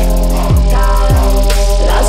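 Electronic dance music with held chords over a steady deep bass, with two deep falling bass drops about half a second and just over a second in.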